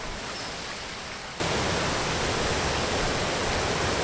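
Water pouring over a man-made weir in a steady rush, which jumps suddenly louder about a second and a half in.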